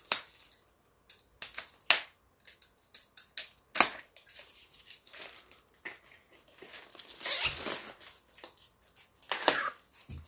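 Cardboard packing being cut with a box cutter and pulled apart by hand: scattered sharp clicks and short scrapes, with a longer tearing scrape about seven seconds in and another near the end.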